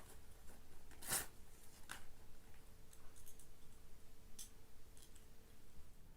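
Scattered sharp clicks and crinkles from Kinder egg toys and their packaging being handled, the loudest about a second in.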